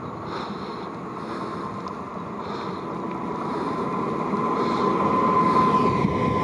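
Newag Impuls 2 (45WE) electric multiple unit drawing into a station, its rumble growing louder as it nears, with a steady high whine that strengthens over the last couple of seconds.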